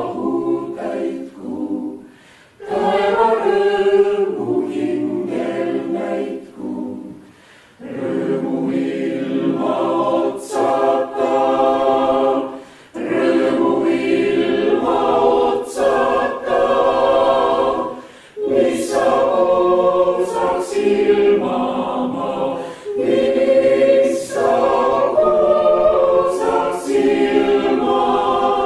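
Chamber choir singing a cappella, in sung phrases of about five seconds each, with short breaks between them.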